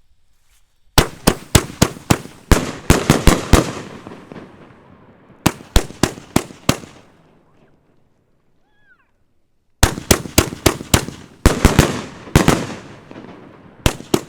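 A 25-shot 500 g fireworks fan cake (El Torro Purple Storm) firing: sharp reports come in three rapid volleys, each trailing off in crackle, with a pause of a few seconds between the second and third.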